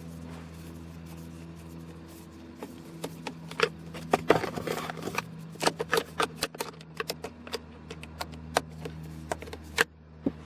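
Phillips screwdriver backing a screw out of a plastic steering-column shroud, with irregular small clicks and scrapes from about two and a half seconds in. A steady low hum runs underneath.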